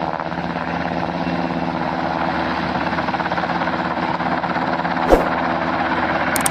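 Helicopter sound effect: a steady drone of rotor and turbine engine. A single sharp click comes about five seconds in.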